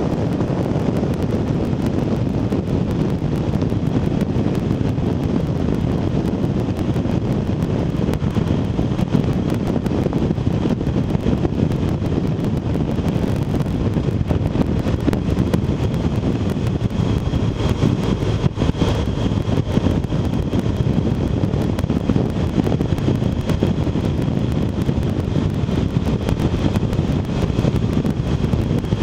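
Steady wind rush over the microphone of a bike-mounted action camera, mixed with the road and engine noise of a BMW R1200RT motorcycle ridden at road speed.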